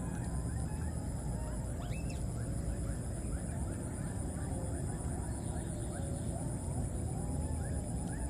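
Outdoor ambience: a steady pulsing high-pitched whine, a quick run of short rising chirps a few each second, and a wavering call beneath them, over a low rumble.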